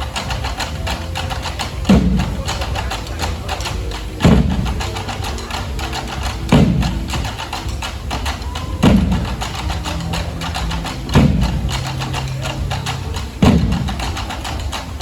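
A large drum struck slowly and evenly, six deep hits about two and a half seconds apart, each falling in pitch as it rings out.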